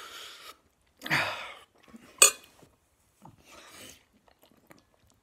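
A man breathing out hard in short gusts from the chilli heat of very spicy noodles, with one short, sharp cough about two seconds in.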